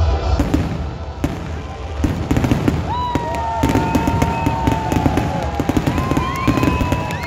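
Fireworks display going off in rapid succession: dense crackling pops and bangs, with long whistling tones from about three seconds in.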